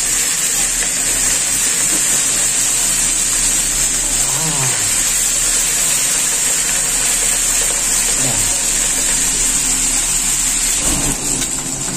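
Hot oil sizzling steadily around whole fish frying in a wok.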